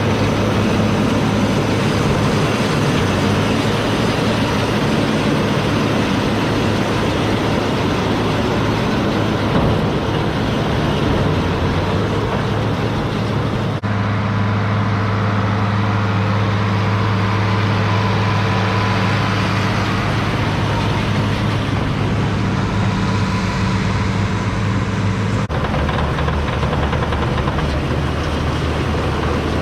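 Farm tractor engine running steadily with a low hum. The engine note changes abruptly twice, about 14 and 25 seconds in.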